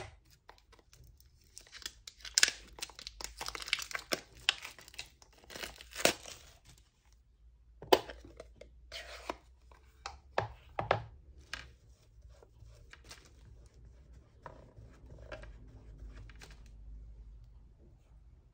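Cellophane wrapping torn and crinkled off a new ink pad for about five seconds, then a few sharp clicks and taps.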